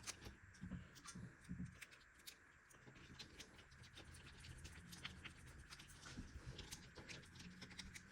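Faint, irregular clicks and light taps of small parts and tools being handled during mixer reassembly, with a few soft thumps in the first two seconds.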